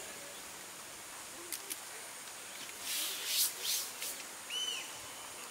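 Camping gear being handled: two light clicks, then a second or so of scraping and rubbing. A short chirp, likely a bird, comes right after.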